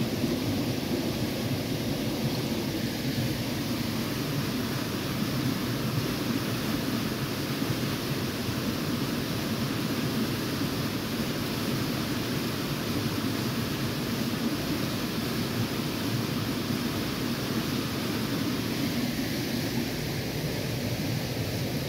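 Shallow stream water running over gravel and stones, a steady rushing.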